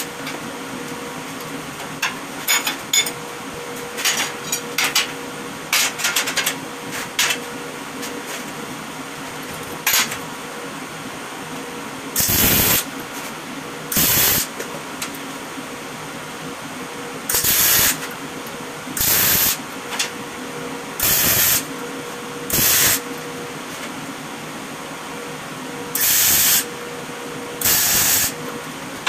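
Welding arc struck in short bursts of under a second, mostly in pairs about a second and a half apart, over a steady machine hum. Scattered small clicks come before the bursts start.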